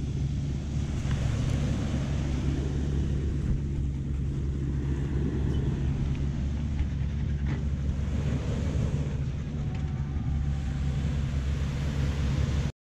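Steady wind rumble on the microphone with ocean surf washing behind it, cutting off abruptly near the end.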